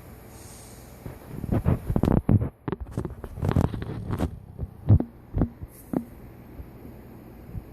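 Golden retriever snoring in its sleep: an uneven run of short, low breaths and puffs starting about a second in and dying away after about six seconds.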